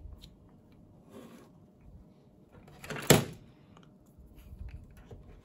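Handling noise as the controller unit and its parts are moved: a soft rustle about a second in, then one loud clack about three seconds in.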